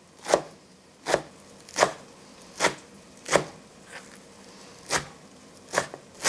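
Knife chopping fresh cilantro on a wooden cutting board: about eight separate chops, roughly one every three-quarters of a second, each a sharp knock of the blade on the board.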